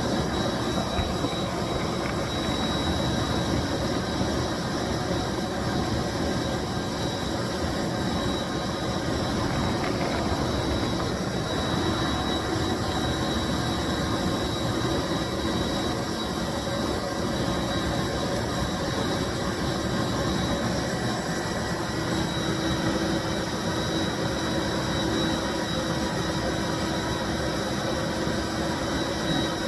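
A 1995 Bissell SC carpet deep-cleaning machine running steadily: an even motor rush with a thin high whine and a low hum, the hum growing a little stronger about two-thirds of the way through.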